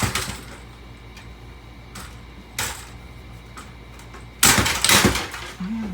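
Sharp knocks and metallic clatter of a stereo's insides being struck and broken apart: one hard hit at the start, a few lighter knocks in the middle, then a quick run of loud hits near the end.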